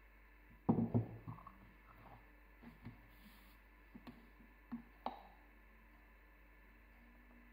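Wooden rolling pin knocking down onto the work surface in a short cluster of knocks about a second in, followed by a few light, separate taps and clicks of kitchen handling.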